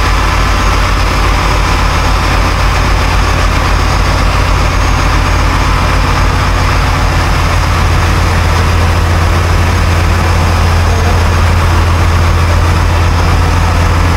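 Cruise boat's engine running steadily under way, a loud, even low drone over the rushing of the churning wake.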